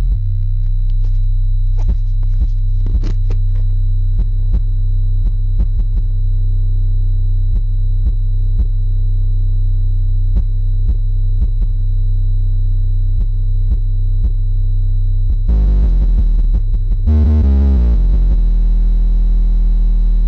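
An engine running with a steady low drone and an irregular clattering rattle over it. About fifteen seconds in it gets louder and fuller, as if revved, and the rattle is drowned out.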